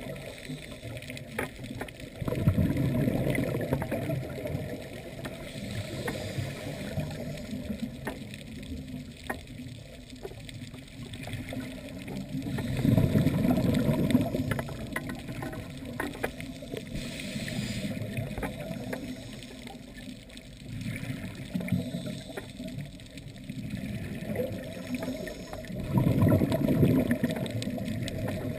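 Underwater noise picked up through a camera's housing: a steady hiss with three louder, low bubbling surges about ten seconds apart.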